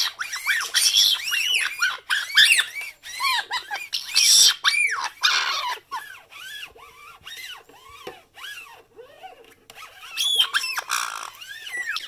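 Black-headed caique giving a rapid series of short rising-and-falling chirps with harsh screeches mixed in. The chirps grow quieter and sparser about halfway through, then a loud screech comes near the end.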